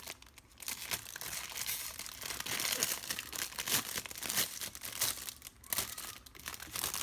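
Packaging of a Lego set being crinkled and torn open by hand: irregular crackling and rustling with short tearing sounds.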